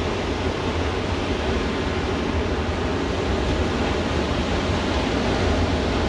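Ocean surf breaking offshore and washing up the sand: a steady rushing noise with a deep, even rumble underneath.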